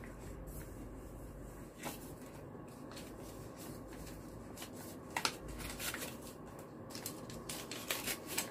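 Paper rustling as a red envelope is handled and opened and a banknote is slid out and handled. The rustles are quiet and scattered, and grow busier over the last few seconds.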